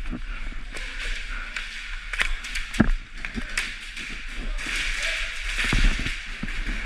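Sounds of an airsoft game: irregular sharp clicks and knocks over a steady hiss, the loudest a little under three seconds in, with faint voices in the background.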